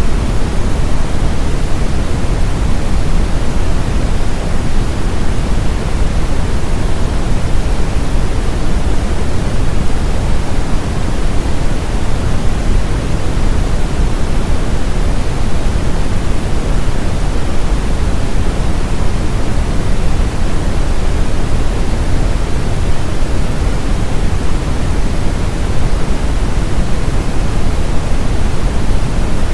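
Steady brown noise: a constant, deep hiss with most of its energy in the low end, unchanging throughout, played as a tinnitus-masking sound.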